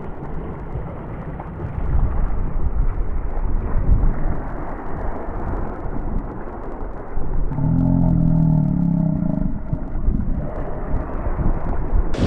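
Wind buffeting an action camera's microphone: a loud, muffled low rumble with no break. About eight seconds in, a brief muffled hum rises over it.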